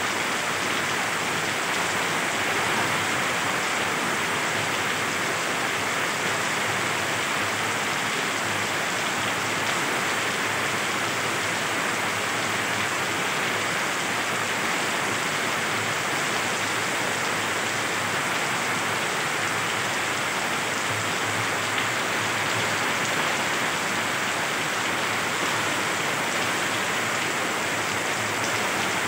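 Heavy monsoon rain pouring down in a steady, even hiss.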